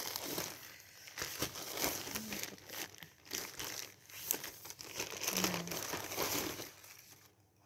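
Plastic SHEIN packaging bags crinkling and rustling as they are handled, dying away near the end.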